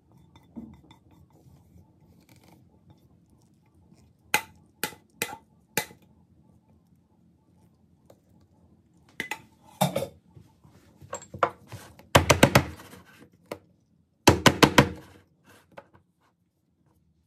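A metal cake pan full of cake batter being tapped, in two quick bursts of rapid knocks, to knock air bubbles out of the batter before baking. Before the bursts come a few separate knocks and clinks as the pan is handled.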